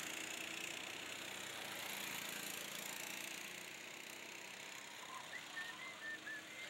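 Go-kart engines running out on the track, a faint steady drone that swells slightly about two seconds in and then eases. A few faint high chirps near the end.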